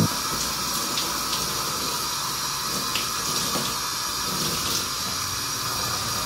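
Shower spray running steadily: an even hiss of water falling onto skin, with a few faint splashes.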